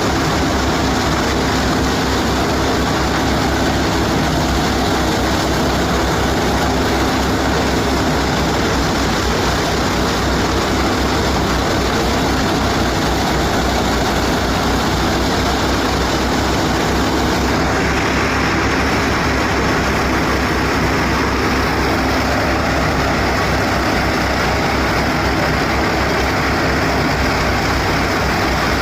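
A tractor-driven wheat thresher running steadily under load. The tractor engine drones beneath the dense rushing noise of the threshing machine. The upper hiss shifts in character about two-thirds of the way through.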